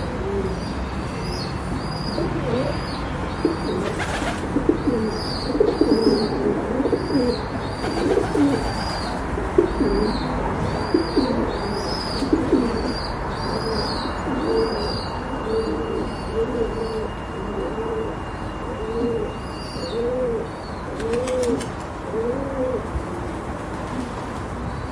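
Pigeons cooing over and over in low, rolling calls, more spaced and regular in the second half. A steady run of high bird chirps goes on alongside them and fades out near the end.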